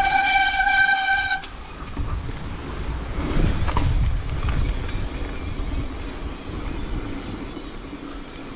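A bicycle's disc brakes squeal in one steady high tone for about a second and a half. Then comes the low rumble of knobby tyres rolling over the dirt trail, mixed with wind noise, heaviest around three to four seconds in.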